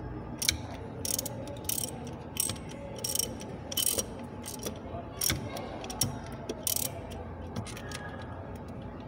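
Ratchet wrench with a 13 mm socket on an extension clicking in short back-and-forth strokes, roughly two clicks a second, as the knock sensor's mounting bolt is undone. The clicks thin out near the end.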